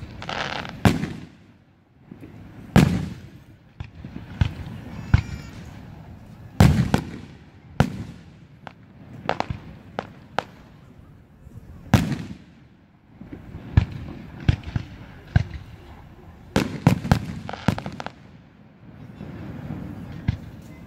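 Aerial fireworks shells bursting one after another, each sharp bang trailing off in a rolling echo, with quick runs of smaller pops in between.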